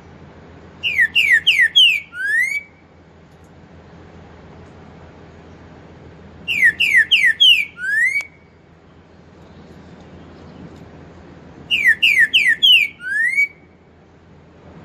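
Green-winged saltator (trinca-ferro) singing its four-note song with the rising 'boi' ending: three phrases about five seconds apart, each four quick falling whistles followed by one rising whistle.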